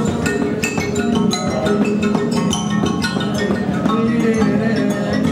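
Music played on struck and plucked percussion instruments: a quick, busy run of short ringing notes over a steady low tone.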